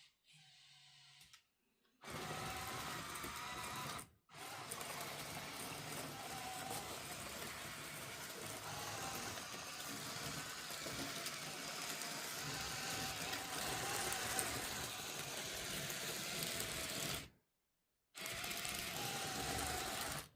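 Small electric motors and gearboxes of a 1:50 scale RC construction model whirring steadily, with a wavering whine. The whir breaks off briefly twice in the first few seconds and for about a second near the end.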